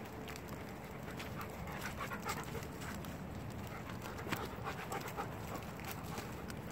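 A shepherd dog panting on the move, with footsteps crunching and rustling through fallen leaves.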